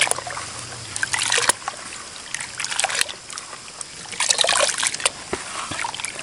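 Water sloshing and splashing in a tub as a hand stirs and squeezes pounded tuba root and garlic through it, with water trickling off the wet root fibres as they are lifted out. The splashes come in irregular bursts about every second. This is the mixing of a homemade organic pesticide solution of tuba root, garlic and salt in water.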